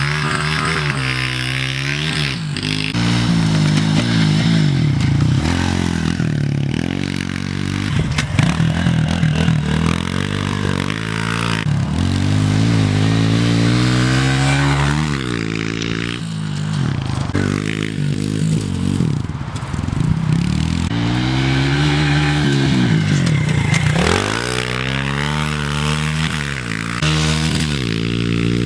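Pit bike engine revving up and easing off again and again as it is ridden round a dirt track, its pitch rising and falling with each burst of throttle.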